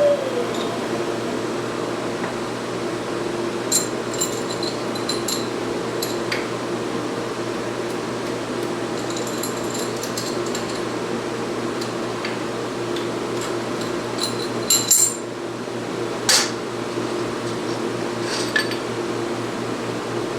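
Shop heater fan running with a steady hum, with scattered light metallic clinks of hand tools being handled and set down, a few sharper ones about three quarters of the way through.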